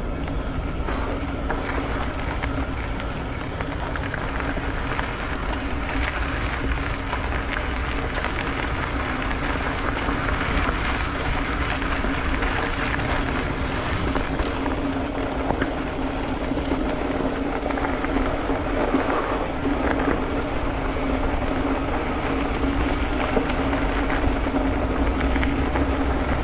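Wind and road noise while riding a bicycle, with a steady hum underneath.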